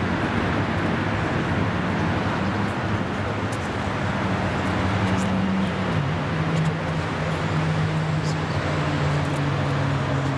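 Diesel locomotive running under load as it hauls a train of coal wagons, its engine note stepping down lower about six seconds in, over the steady rumble of the train.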